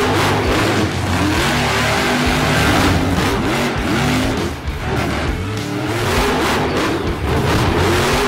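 Electric motor of a Losi LMT-10 radio-controlled monster truck revving up and down as it drives and jumps over sand, its tyres spinning and throwing sand, mixed with background music.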